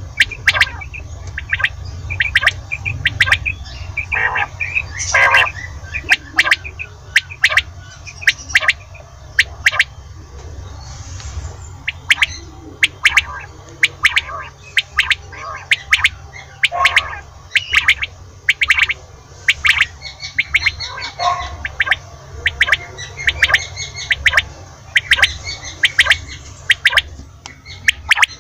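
Common quail (batair) calling, a quick run of short, sharp notes repeated over and over, with a low steady hum underneath.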